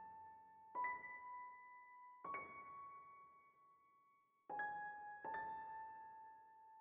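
Soft background piano music: four slow single notes, each struck sharply and left to ring out and fade.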